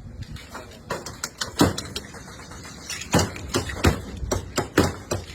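Irregular sharp knocks and clatters of glasses and utensils being handled, about a dozen, several of them loud.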